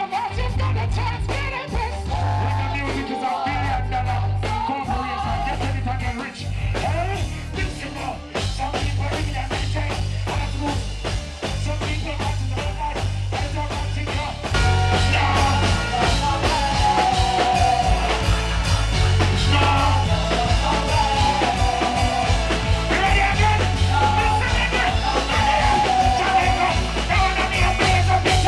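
Live reggae band with a lead vocal and backing singers: heavy steady bass under a wavering sung melody. The music gets louder and fuller about halfway through.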